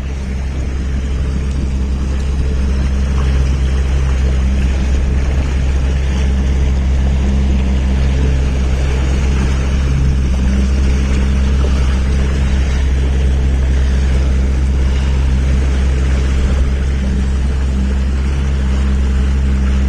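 Motorboat engine running steadily under way, a constant low hum over a rush of wind and water.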